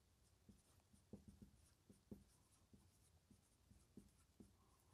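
Marker pen writing on a whiteboard: faint, short strokes and taps of the tip, a dozen or so spread unevenly.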